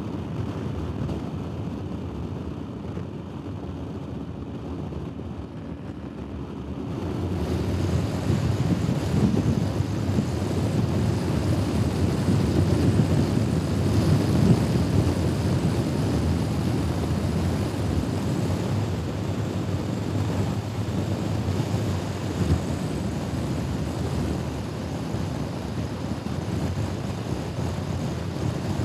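Honda Forza scooter on the move: a steady engine drone under wind noise on the microphone, growing louder about seven seconds in.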